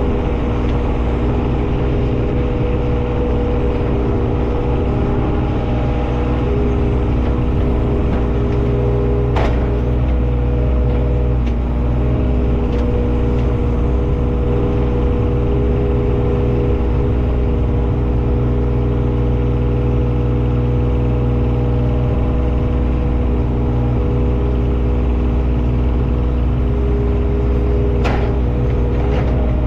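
Engine of heavy digging machinery running steadily at a constant speed, with a sharp knock about a third of the way in and another near the end.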